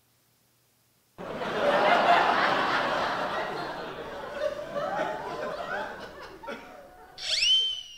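Canned crowd laughter, a sound effect, starting suddenly about a second in and slowly fading. Near the end a short whistling comedy sound effect slides in pitch.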